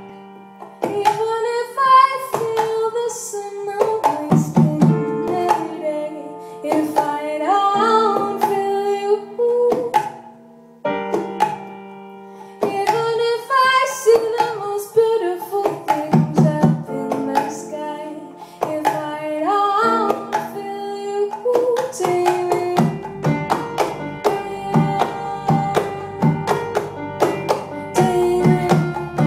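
Live music: a woman singing long, sliding notes over keyboard chords, with hand drums struck between phrases. About two-thirds of the way through the drums settle into a steady, busier beat.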